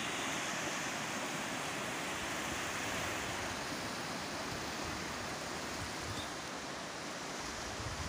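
Steady wash of ocean surf, an even hiss with no distinct breaks.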